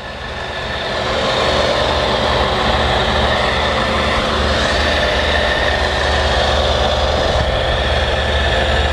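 Ford F-350's 460 cubic-inch gasoline V8 idling steadily with a low rumble. It grows louder over the first second or so, then holds level.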